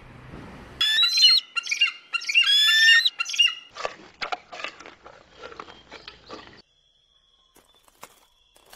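Eagle calling: a series of loud, high-pitched, piercing screeches with sliding pitch for a couple of seconds. Then comes a few seconds of shorter, rougher, lower sounds, and it fades out near the end.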